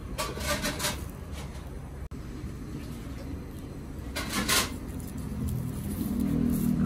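Steady low background rumble, with two short scratchy rustles, one just after the start and one about four seconds in.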